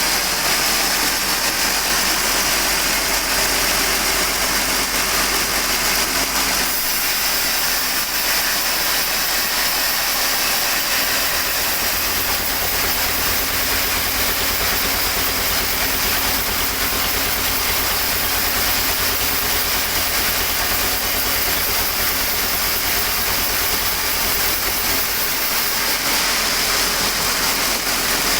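Sawmill machinery running steadily: a loud, continuous engine drone with a strong hiss over it.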